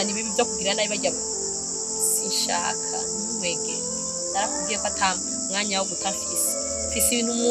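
Steady high-pitched chorus of insects chirring without a break.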